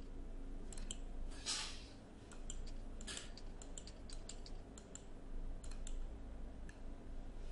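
Faint clicking at a computer, many short, scattered ticks of mouse and keys, with two brief breathy hisses about one and a half and three seconds in.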